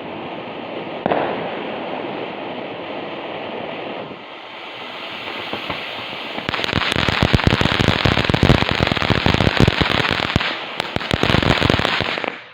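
Consumer firework burning with a steady hiss, then about six and a half seconds in breaking into a loud, dense stream of rapid crackling pops that stops abruptly near the end.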